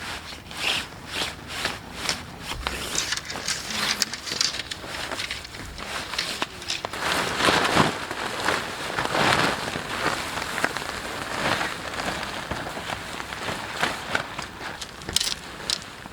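Rain falling, with crackling rustles that come and go. The rustles are loudest between about seven and ten seconds in.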